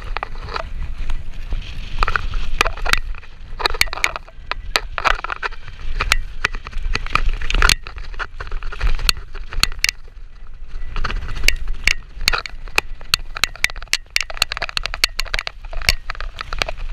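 Mountain bike rattling down a rough grassy track, with rapid irregular clicks and knocks from the bike jolting over bumps and tyres running through grass. A low rumble of wind on the microphone runs underneath.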